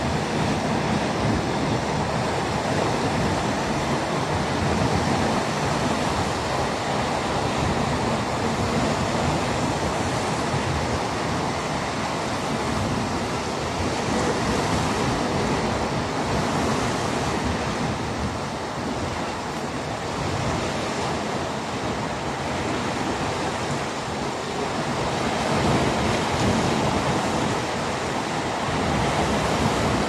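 Steady rushing wash of the sea mixed with wind, with no distinct breaking waves and only gentle swells in loudness; wind flutters on the microphone.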